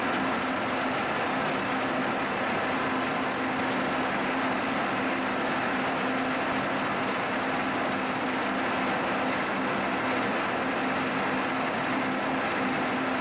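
Vertical milling machine taking a steady continuous cut in a steel block with an end mill: an even hiss of cutting over a steady spindle hum.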